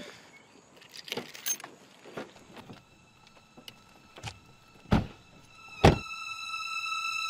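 Small clicks and knocks of car handling, then two car doors shutting about a second apart, the second one the loudest. A sustained musical drone fades in and swells underneath.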